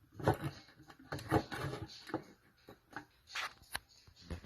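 Irregular knocks and light clatters of objects being handled, a dozen or so short taps and bumps.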